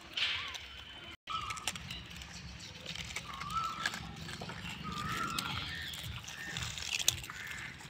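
Rhesus macaque troop feeding on scattered biscuits: scattered clicks and crunches of biscuit being handled and chewed, with a few short, high, level calls over a low rumble. The sound drops out briefly about a second in.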